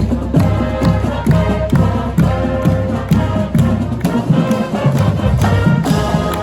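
Music with a steady beat under sustained chords.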